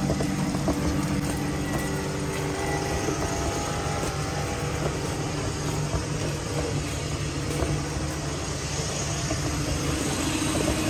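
Street traffic: vehicle engines running steadily, a constant drone with some steady low hum.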